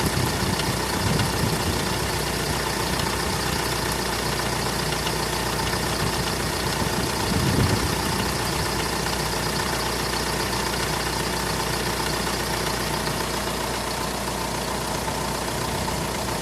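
2008 Mitsubishi L200 engine idling on a cold start with a steady knock, which the owner says lasts one and a half to two minutes until the engine warms and runs smooth. About halfway through there is a brief louder swell.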